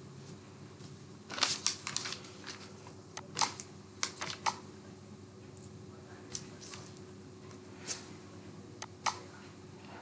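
Scattered clicks of a computer mouse, some in quick clusters of two or three, over a faint steady hum.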